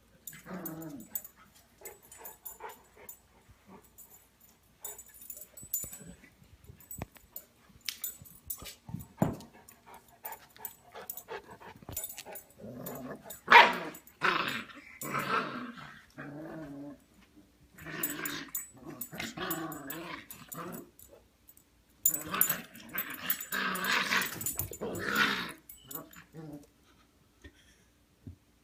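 Dogs growling in play: a large English Mastiff and a tiny Yellow Lab puppy. The growling comes in three stretches of a few seconds each, loudest about halfway through, with scattered short clicks between.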